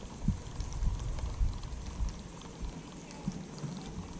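Small waves lapping and gurgling against a plastic kayak hull in uneven low splashes, with faint light ticks.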